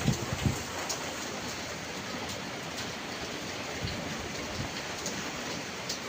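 Steady rain shower, an even hiss with scattered louder drops ticking, and a couple of low thumps just at the start.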